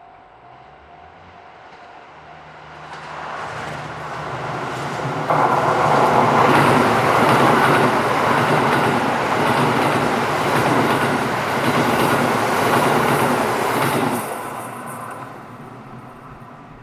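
KiHa 85 series diesel multiple unit passing at speed: it comes up and turns loud about five seconds in, with a steady diesel engine note under wheel clickety-clack on the rail joints, then fades away over the last few seconds. A level crossing warning bell dings at first.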